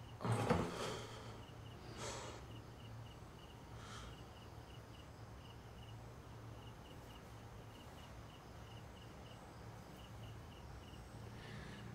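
Crickets chirping in short trains of high, rapid pulses over a low steady hum of room tone. Near the start there is a brief louder rustle, with fainter knocks about two and four seconds in.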